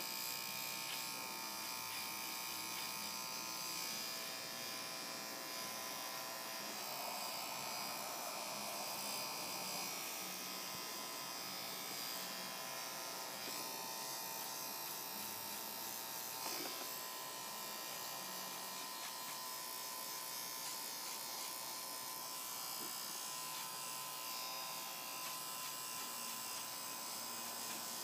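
Electric hair clipper buzzing steadily as it trims the long hair between a dog's toes.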